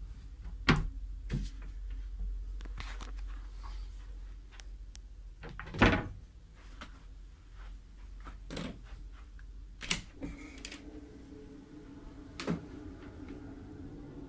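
Cabin fittings being handled: a wardrobe and doors opened and shut in a series of knocks and clicks, the loudest about six seconds in, over a steady low hum. A second steady hum joins from about ten seconds in.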